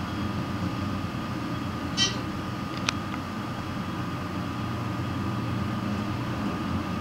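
Steady low hum of a Dover hydraulic elevator cab travelling upward, heard from inside the cab. A brief high ping comes about two seconds in and a sharp click about a second later.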